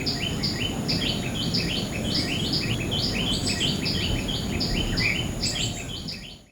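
Small birds chirping in quick, repeated short notes over a steady low outdoor rumble and a thin, continuous high insect whine; all of it fades out near the end.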